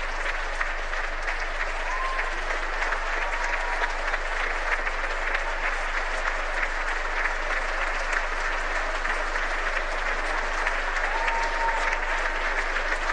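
Theatre audience applauding steadily, a dense, even clatter of many hands clapping.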